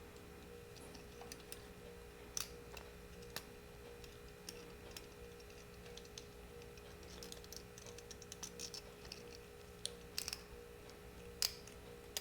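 Light, scattered clicks and taps of small metal parts and tools being handled during carburetor dismantling, with a quick run of clicks about two thirds of the way through, over a steady low hum.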